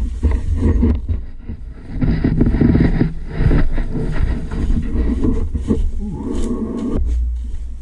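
Four-wheeler (ATV) engine running as the machine picks its way along a rough trail. The loudness rises and falls with the throttle, under a heavy low rumble.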